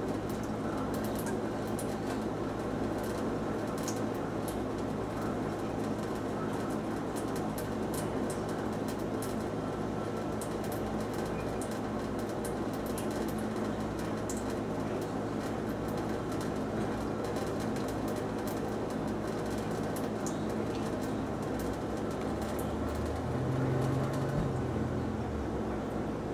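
Thin stream of tap water from a kitchen faucet running into a stainless steel sink, a steady splashing trickle with faint clicks. A brief low sound comes in about 23 seconds in, and the higher splashing fades near the end.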